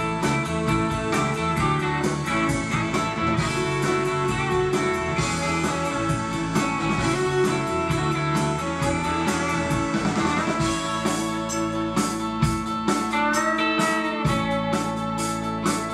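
Live country band playing an instrumental passage of the song: electric and acoustic guitars over bass and a steady drum beat, with bending guitar notes in the second half.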